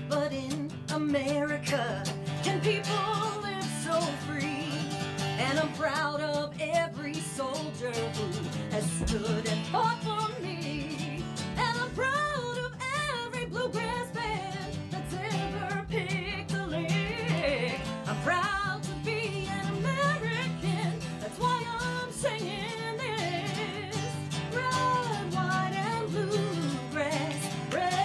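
Acoustic guitar strummed steadily under a woman singing a country-style song, her voice sliding and wavering in pitch.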